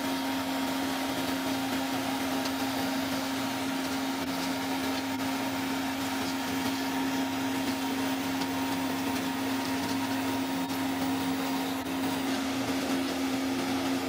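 Power Curbers slipform curb machine running steadily while extruding a concrete curb: an even mechanical hum with a constant low whine.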